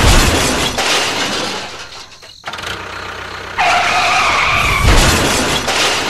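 Crash sound of a toy steam train hitting a loaded trolley and derailing: a loud smash with shattering at the start and again near the end, with a steady held tone in between.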